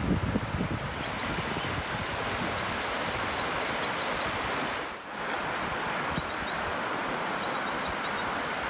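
Steady wash of surf on a beach, with wind buffeting the microphone at the start. The sound dips briefly about five seconds in.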